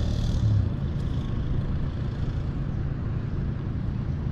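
Steady, irregular low rumble of wind buffeting the chest-mounted camera's microphone.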